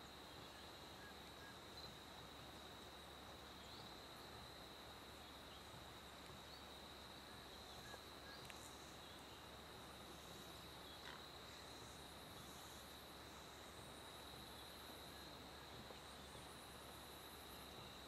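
Faint forest ambience: an insect, cricket-type, singing one steady high-pitched note without a break. A few faint, short, high rising chirps come in over the last several seconds.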